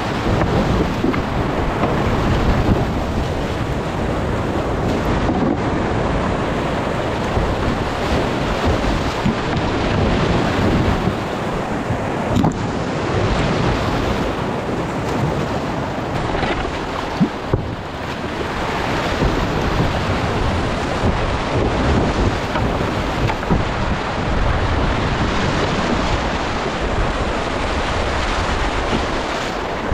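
Whitewater rapids rushing continuously and splashing against the bow of a kayak running a class II-III creek, with a few sharper splashes.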